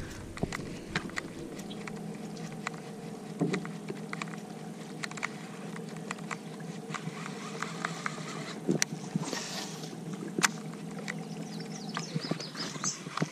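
A bass boat's electric trolling motor humming steadily, with scattered sharp clicks and knocks from the boat and tackle.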